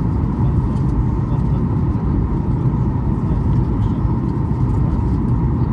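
Steady in-flight cabin noise of a Boeing 737 MAX 8: the CFM LEAP-1B engines and airflow past the fuselage make a constant low rumble, with a faint steady hum in it.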